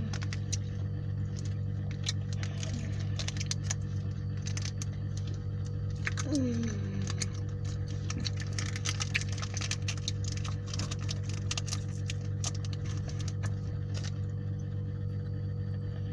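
Someone eating: scattered sharp clicks and crackles of chewing and handling food, over a steady low hum. A short falling hum-like voice sound comes about six seconds in.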